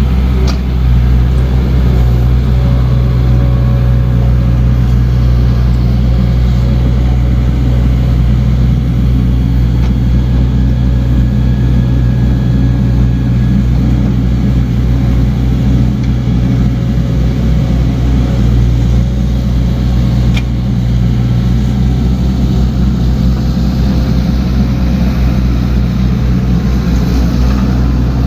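Diesel engine of a compact earthmoving machine running steadily, a loud, even, low drone with no change in speed.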